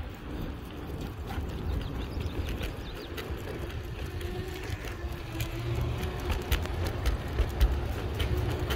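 Large rubber wheels of a dog-pulled mountainboard rolling over a concrete sidewalk: a steady low rumble with a faint hum, and from about five seconds in, a run of sharp clicks.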